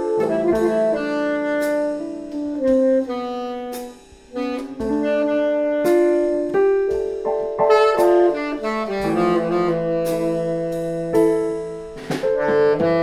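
Jazz music: a saxophone playing a melody of held notes over piano, dropping away briefly about four seconds in.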